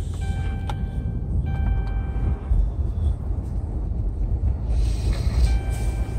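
Steady low rumble of a car on the move, heard from inside the cabin. Faint high steady tones come and go over it in the first half, and there is a short hiss near the end.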